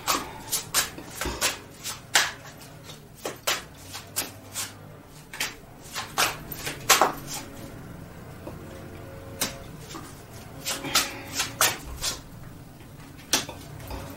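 Tarot cards being shuffled and handled by hand: a string of short card snaps and taps. They come thick for the first few seconds, thin out past the middle, then pick up again.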